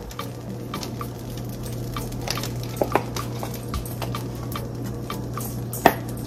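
Melting butter with garlic and herb paste sizzling in a frying pan, with scattered crackles and pops; one sharper click near the end.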